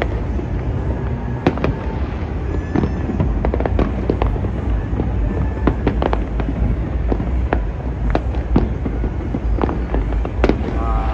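Fireworks going off all across a city: many overlapping bangs and pops at irregular intervals, over a steady low rumble.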